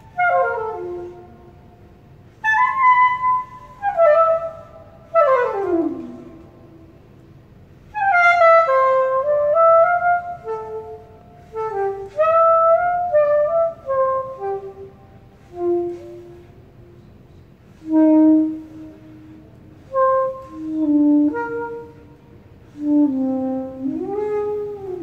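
Curved soprano saxophone playing alone, a jazz line in short phrases separated by pauses, with several fast downward slides in pitch and a bent note near the end.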